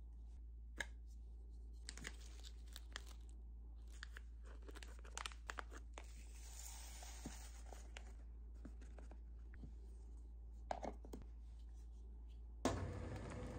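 Faint crinkling of a plastic salt bag and the soft hiss of coarse salt poured into a clear plastic container, with a few light plastic clicks as the container is handled.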